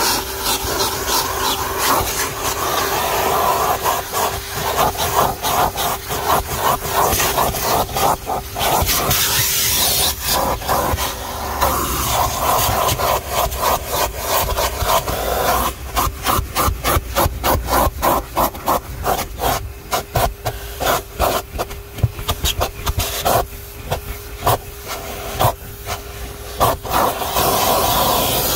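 Vacuum cleaner with a crevice tool working car carpet. A steady motor hum runs under rushing suction air, and the air is choked and released again and again as the nozzle is pressed against and dragged across the carpet pile. The chopping is densest in the second half.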